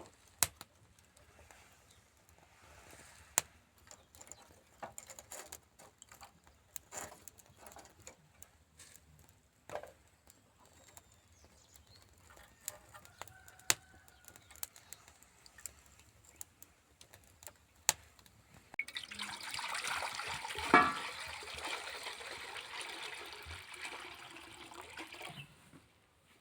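Scattered light knocks and clicks of things being handled, then water pouring for about six seconds, with one sharper knock partway through, stopping shortly before the end.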